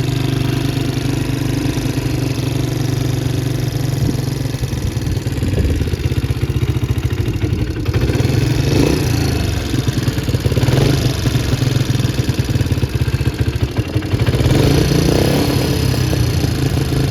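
2011 Can-Am DS90 quad engine idling high and steady, its note swelling briefly a few times. The owner puts the high idle down to a fuel issue.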